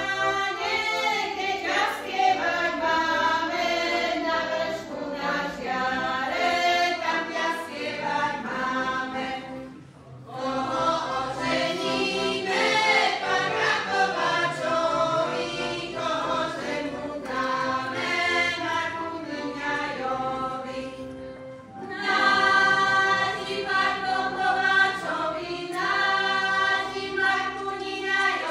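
A women's folk ensemble singing a local Slovak folk song together in three long phrases, each breaking off briefly, about ten and twenty-two seconds in.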